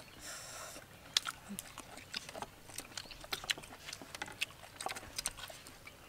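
Eating at close range: chewing and mouth noises with light clicks of chopsticks against porcelain plates and bowls, as many short irregular ticks, and a brief hiss shortly after the start.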